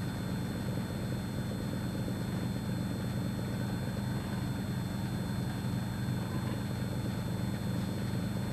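Vacuum pump running steadily with a low, even hum as it draws the air out of a flask of cold water, lowering the pressure inside.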